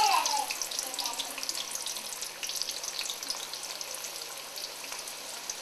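Hot oil sizzling and crackling in a skillet as soul rolls fry, a dense patter of tiny pops over a steady hiss that eases off slightly.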